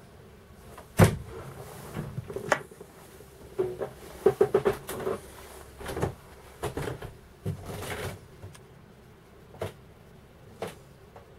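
Wooden cabin door knocking and latching, with a string of further knocks and clicks. The loudest sharp knock comes about a second in, and a quick rattle of clicks follows around four to five seconds in.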